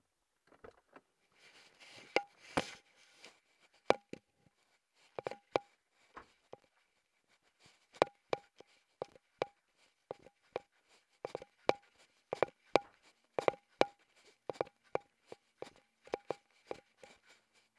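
A series of sharp clicks or taps at irregular spacing, about one or two a second, many with a short, faint ring.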